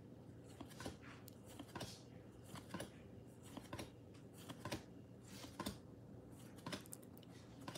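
Baseball trading cards being flipped through one at a time, a faint card-on-card slide or flick about once a second.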